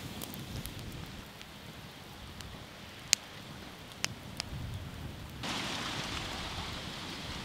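Burning paddy straw crackling and hissing as it smoulders, with a few sharp pops; the loudest pop comes about three seconds in. The hiss gets louder about five seconds in.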